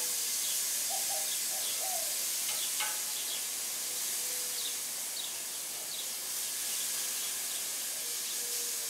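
Pork loin and sliced potatoes sizzling on a gas grill as they are turned with tongs: a steady hiss. Birds chirp now and then.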